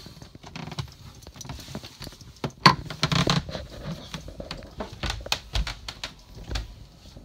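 Irregular clicks, taps and knocks of things being handled in a small space, with the loudest knock about two and a half seconds in.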